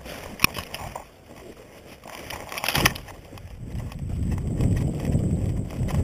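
Leafy brush and twigs rustling and snapping against a person pushing on foot through dense undergrowth, with a few sharp snaps. A low rumbling noise grows louder in the second half.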